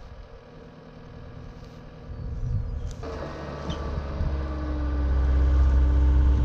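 Tracked skid loader's engine running as its hydraulic auger drills a post hole, getting louder from about three seconds in and running steadily loud near the end.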